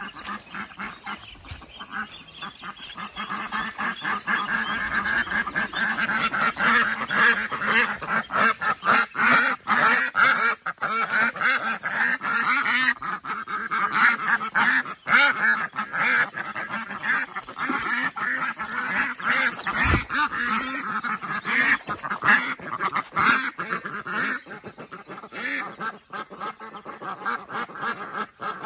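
Domestic ducks quacking almost without a break, many calls overlapping in quick succession.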